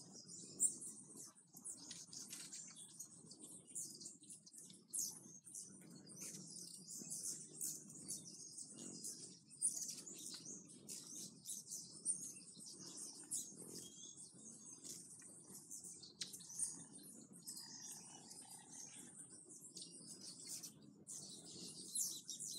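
Hummingbirds at nectar feeders chirping: a busy, continuous stream of short, very high-pitched chips and twitters, over a faint low hum.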